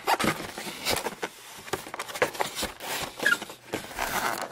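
Cardboard box being handled: a string of light taps, scuffs and rustles at irregular intervals.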